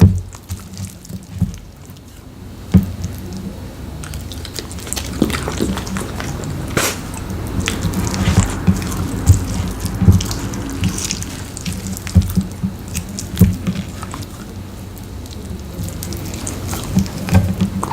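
Dog eating rotisserie chicken up close: wet smacking, licking and chewing, a run of irregular sharp smacks and clicks over a soft wet background.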